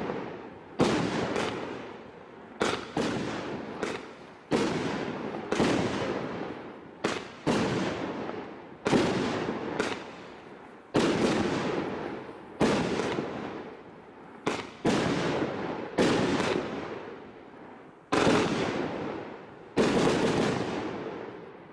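Consumer firework barrage (cake) firing its shots, with sharp bangs coming roughly every one to two seconds, some in quick pairs. Each bang is followed by a long fading rumble.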